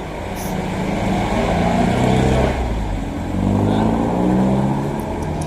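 Yamaha Mio Soulty 115 scooter engine revving, its pitch rising and falling twice.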